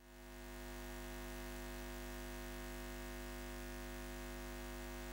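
A steady low electrical hum with several held tones, the buzz of a neon sign switching on, fading in over about the first second and then holding unchanged.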